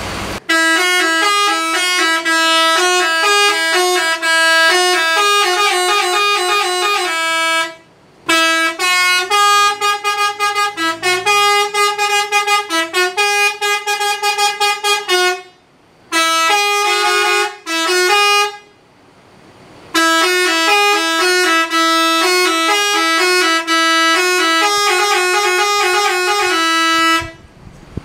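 Indonesian "telolet" bus horn, a set of air horns playing quick melodies note by note, with a few short pauses. It stops shortly before the end.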